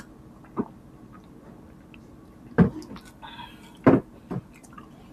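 Heavy glass mugs set down on a table: a light knock, then two loud glassy knocks a little over a second apart and a smaller one just after.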